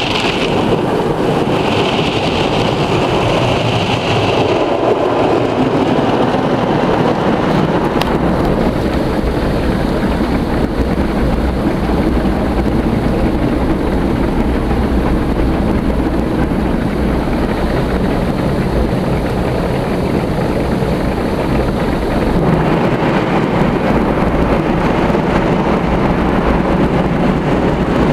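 Belanger Freestyler soft-touch car wash heard from inside the car: foam-cloth brushes scrubbing over the glass and body amid water spray, a loud, steady wash noise.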